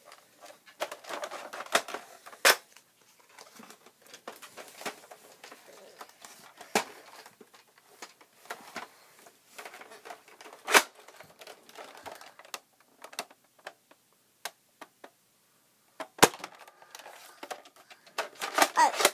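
Handling noise from a Mega Nerf blaster: scattered clicks and rustling, with a few sharp clacks standing out.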